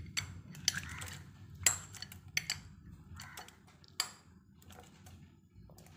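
Cutlery clinking against dishes as fried banana pieces are transferred into a bowl of beaten egg: several sharp clinks a second or so apart, over a faint low rumble.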